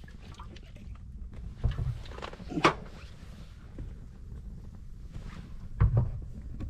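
Campfire of wet firewood burning with a low steady rumble, a sharp pop about two and a half seconds in, and two dull thumps, one before the pop and one near the end.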